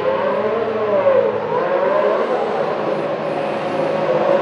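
Ferrari SF71H's 1.6-litre turbocharged V6 hybrid Formula 1 engine running at low revs, its pitch wavering up and down in the first half and then holding steadier.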